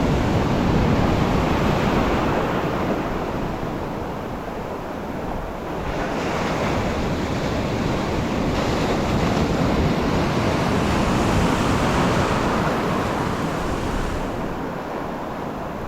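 Ocean surf breaking on the beach, a steady wash that swells and eases as waves come in, with wind buffeting the microphone.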